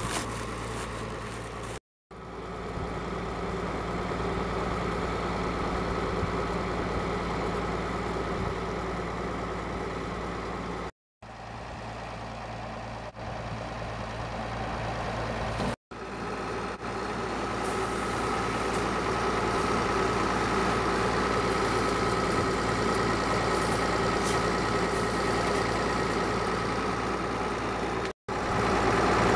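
Farm tractor engine idling steadily, a low even hum broken by a few brief drops to silence.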